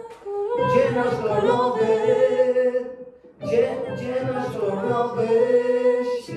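Singing: a voice holding long, sustained notes in two phrases, with a short break about three seconds in.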